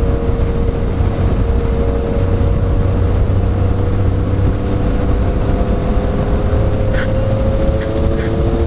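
1994 Suzuki Cappuccino with a big turbo, driving at a steady speed and heard from inside the cabin. Its engine holds a steady drone that creeps slowly up in pitch, over a heavy low road rumble.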